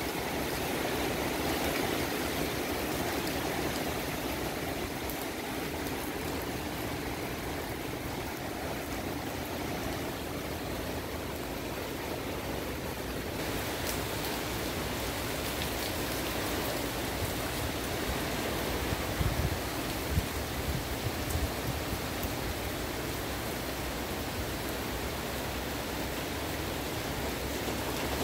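Steady rain falling on trees and garden foliage, an even hiss throughout. A few low bumps come about two-thirds of the way through.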